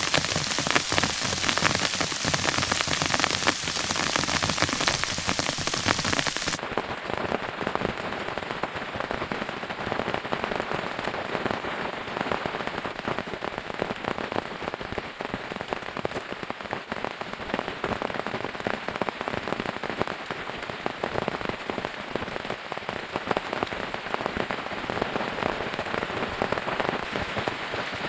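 Steady rain, a dense patter of drops. About six and a half seconds in, the sound turns abruptly duller and less hissy.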